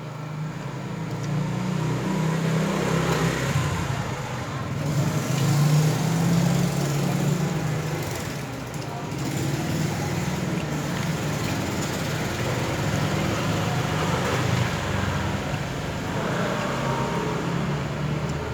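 Steady low rumble of motor vehicle engines running nearby, swelling and easing, like passing road traffic.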